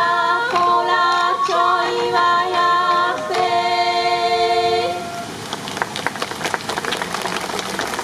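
Several voices singing held notes together in a Sansa Odori song, moving in steps from note to note; they stop about five seconds in. A dense clatter of sharp strikes follows.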